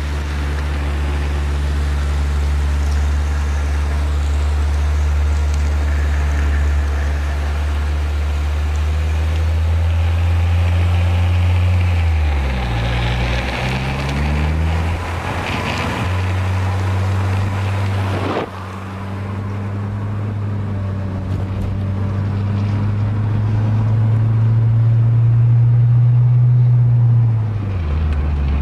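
Car engine running under way over road and wind noise; about twelve seconds in the revs dip and pick up again as a gear is changed, then later climb slowly and fall sharply near the end at the next shift.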